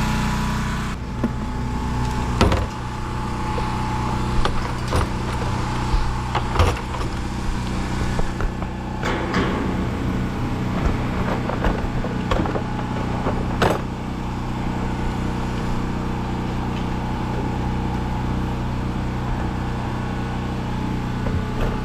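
An engine running steadily, with scattered sharp metal clanks and knocks on top.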